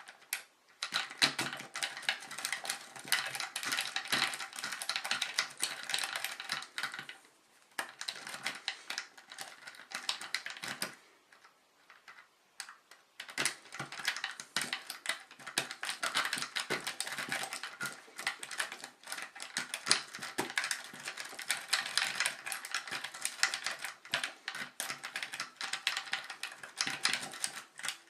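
Paperclip rake scraping in and out over the pins of a five-pin pin-tumbler lock under light tension, a dense rapid clicking of pins springing up and down. The clicking stops briefly about 7 seconds in and again for about two seconds near the middle.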